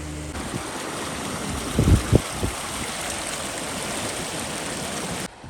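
Floodwater rushing steadily, with two heavy low bumps about two seconds in.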